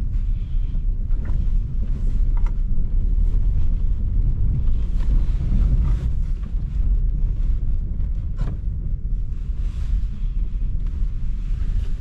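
Car driving: a steady low rumble of road and engine noise, with a few faint clicks.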